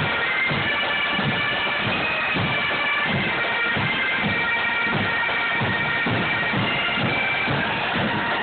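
A pipe band of Highland bagpipes playing a tune together, with a steady drum beat underneath, about two beats a second.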